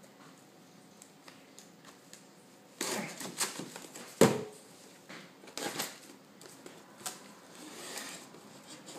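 Packaging being handled and opened by hand: a few irregular bursts of rustling and scraping, a sharp knock a little past the middle that is the loudest sound, and a short click a few seconds later.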